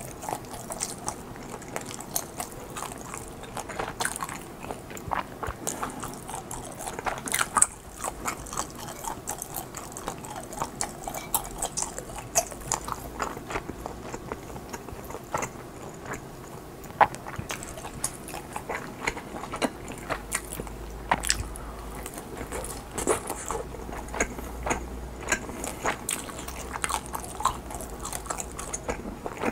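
Chewing of chewy mozzarella-cheese-filled rice cakes, heard as many small irregular mouth clicks and smacks.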